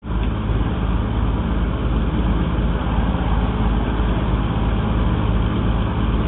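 A small boat's engine running steadily, a constant low drone.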